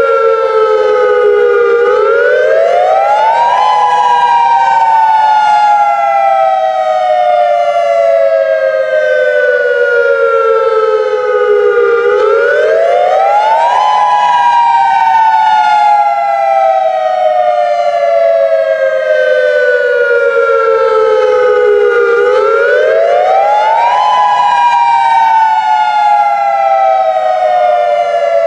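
Federal Signal Modulator 3012 outdoor warning siren sounding its dual-tone attack signal during a test: two close tones together, loud and steady, that rise quickly over about two seconds and then fall slowly for about eight, the cycle repeating three times.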